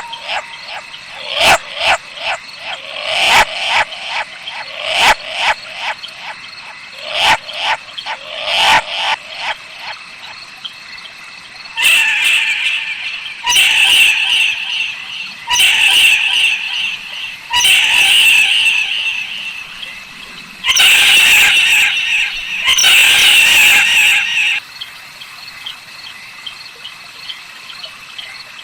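Owl calls: a quick run of short, rasping calls in the first several seconds, then six long, hissing screeches of about a second each, followed by a quieter stretch near the end.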